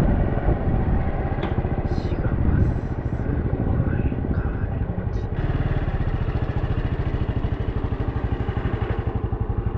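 Small 125cc-class motorcycle engine running steadily under way, its rapid firing pulses and road noise continuous.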